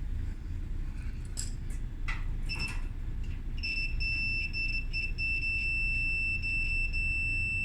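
Digital multimeter's continuity buzzer beeping as its probes are held across a dryer part: a short beep about two and a half seconds in, then a steady high tone from about three and a half seconds on, breaking up briefly before it holds. The unbroken tone shows continuity: the part tests good.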